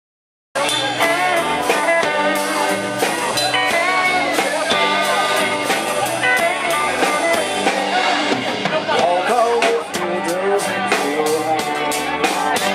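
A band plays the instrumental intro of a blues-rock song: guitar lines with bent notes over a steady drum beat. It starts suddenly about half a second in.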